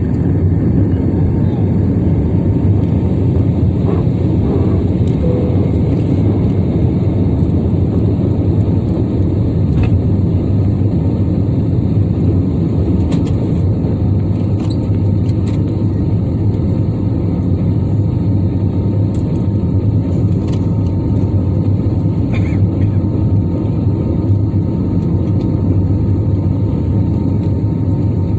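Steady low roar of an Airbus A320neo's jet engines and airflow, heard inside the cabin while the plane lifts off and climbs out.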